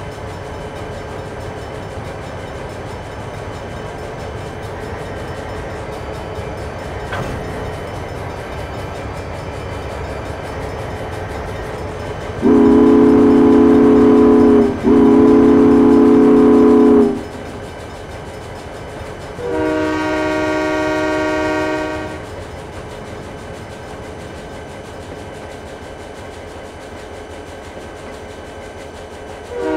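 Train running with a steady rumble, then its horn sounding two long blasts back to back about midway. A few seconds later comes a shorter blast with a higher-pitched chord, and another starts right at the end.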